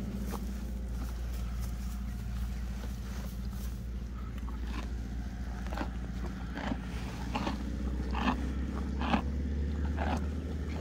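A horse chewing hay close by: a run of evenly spaced crunches, about one every second, that starts about four seconds in and grows louder. A steady low rumble underneath.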